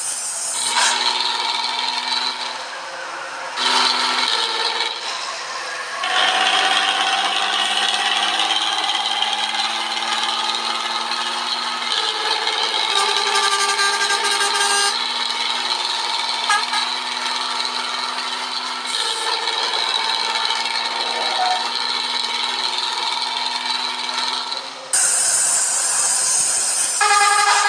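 A person snoring: a continuous pitched drone with no pauses, its tone shifting every few seconds.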